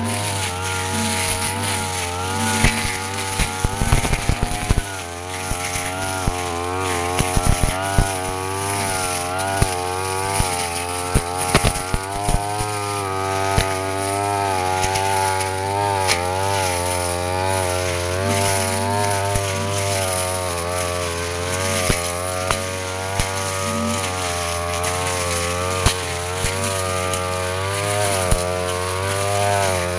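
Yasuka brush cutter's engine running at high speed while cutting grass and undergrowth, its pitch wavering up and down as the head meets the vegetation, with scattered sharp clicks.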